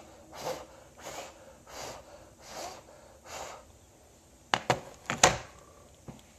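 Handling noise from the phone that is recording: a run of six soft rubbing swishes, about one every 0.7 s, then a few sharp clicks and knocks about halfway through as the phone is set back in place.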